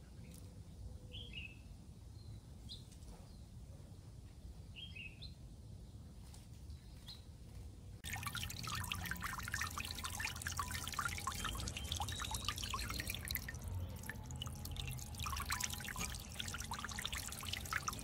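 A few short bird chirps over quiet outdoor background. About eight seconds in, this gives way to the steady splashing and trickling of water, as a floating solar fountain pump sprays jets that patter back into a bird bath.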